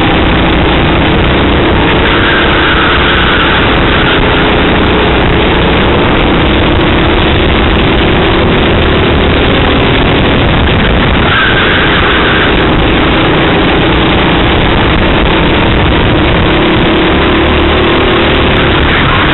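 Racing kart engine running at race speed, heard from a camera mounted on the kart, over a dense rush of noise. The engine pitch rises and falls gently through the corners.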